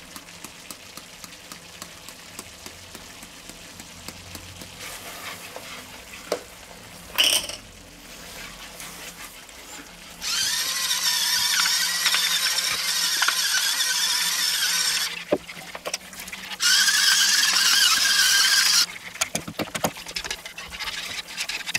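Whisk stirring a cream sauce in a non-stick pan. Then a small electric spice mill grinds seasoning over it with a loud whirring grind, once for about five seconds from about ten seconds in and again for about two seconds near the end.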